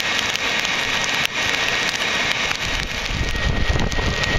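Hair dryer blowing at full blast into a homemade charcoal forge: a steady rushing hiss with a thin steady whine, over the crackling and popping of the burning charcoal. Some low rumbling comes in during the last second or so.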